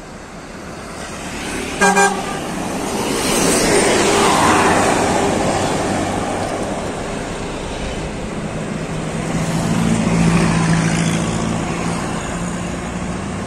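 A coach bus gives a short double horn blast about two seconds in as it approaches, then passes close by with a rush of engine and tyre noise. Later another heavy vehicle goes by with a low engine hum amid the passing traffic.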